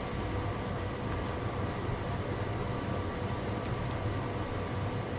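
Steady low mechanical hum with a hiss, the constant background of a room, with a few faint ticks.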